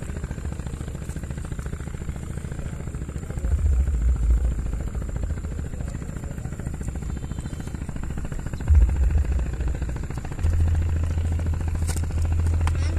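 Wind buffeting the microphone: a low rumble that surges louder about three and a half seconds in, briefly near nine seconds, and again from about ten and a half seconds on.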